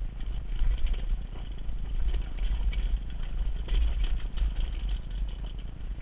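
Wind buffeting the microphone in a steady low rumble, over the rattle and clatter of a mountain bike rolling fast down a rocky dirt trail.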